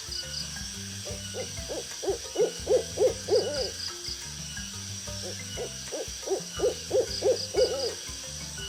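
Owl hooting: two runs of quick hoots, six or seven notes each, a few seconds apart.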